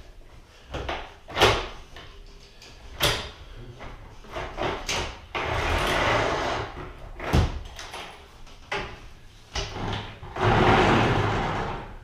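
Antique wooden double-hung window sash being handled and freed from its sash cords: a few sharp wooden knocks and two longer scraping rubs, one about halfway through and one near the end.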